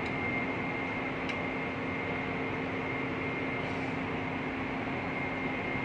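Steady drone of running machinery with a constant high-pitched whine and a fainter low hum. There is a faint click a little over a second in.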